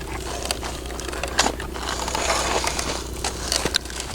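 Plastic toy excavator bucket scraping and scooping dry dirt and small stones: a string of gritty scrapes, crunches and clicks, with a longer scrape about two seconds in.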